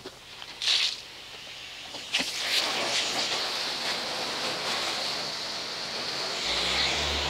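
Water spraying steadily from a hose nozzle as a car is rinsed, starting about two seconds in after a short burst of spray; a low hum joins near the end.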